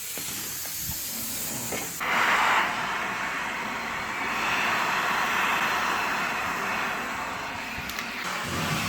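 Central vacuum hose and wand sucking air, a steady rushing hiss. About two seconds in it jumps louder and brighter, then holds steady.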